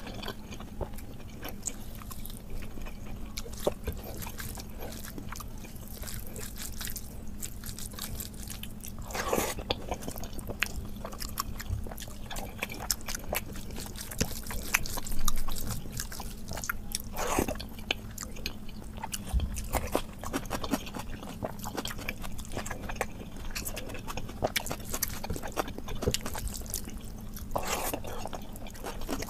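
Close-up eating sounds: chewing and lip smacks, and wet squishing as rice is mixed with dal by hand on the plate, a dense run of small clicks and smacks over a steady low hum.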